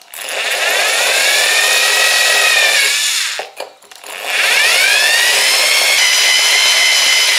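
Cordless drill spinning a hole-saw bit into a ceramic pot kept wet with a sponge: the motor's whine rises as it spins up, then holds steady over a gritty grinding hiss. It runs twice, stopping briefly about three seconds in.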